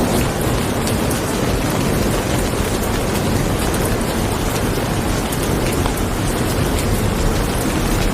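Steady rain falling and pattering on surfaces, with scattered individual drops ticking through it.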